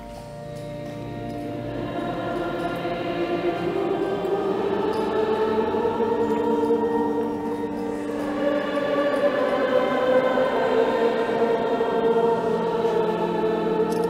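Choir singing slow music in long held chords, fading in over the first two seconds and then sustained.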